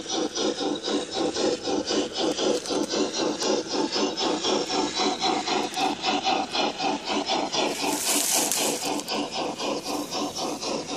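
Sound system of a Bachmann Spectrum G-scale 2-6-6-2 Mallet model steam locomotive playing steady rhythmic exhaust chuffs, about four a second, as the engine runs. A brief hiss of steam comes about eight seconds in.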